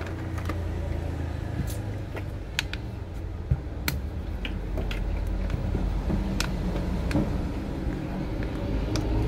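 Scattered light clicks and taps of a phone and small tools being handled at a repair bench, over a steady low hum.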